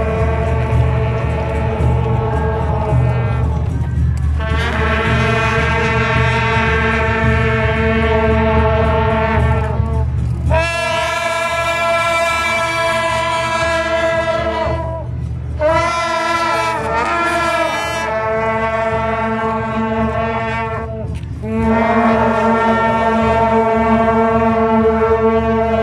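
A procession band's long straight brass horns sounding long held chords, each lasting several seconds with brief breaks between. A steady low rumble runs under the first half.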